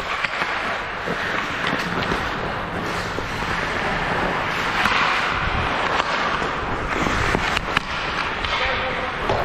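Ice hockey play on the rink: a steady scrape of skates on the ice, broken by several sharp clacks of sticks and puck.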